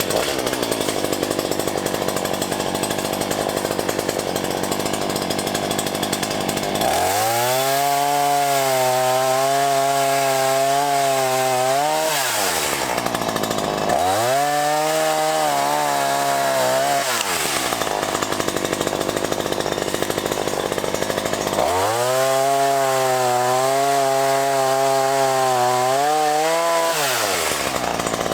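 Black Max 16-inch chainsaw running at full throttle. It is cutting wood for stretches and revs freely between cuts three times, each time with a steady high pitch that sags as the chain goes back into the wood.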